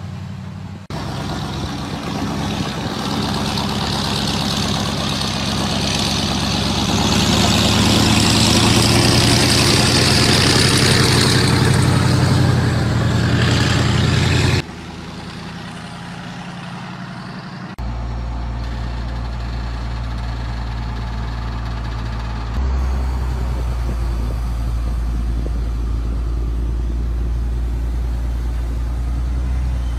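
Heavy diesel machinery running: a large crawler excavator's engine loud with a harsh hiss on top for the first half, cutting off suddenly. A steady low diesel rumble follows and gets louder about three quarters of the way through.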